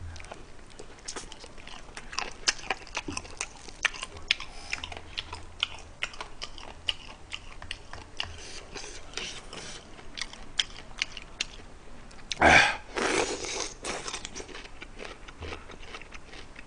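A person chewing and crunching fried chicken close to the microphone, with many small sharp crunches and smacks. About twelve seconds in comes a loud breathy exhale against the heat of the spicy sauce.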